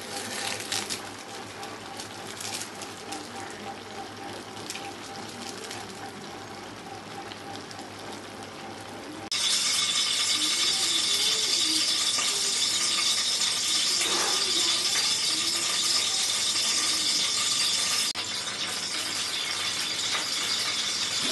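A curry of mushrooms, potatoes and cheese simmering faintly in a wok, then, about nine seconds in, a sudden loud steady sizzle and spatter of hot oil in an empty kadai on a gas stove.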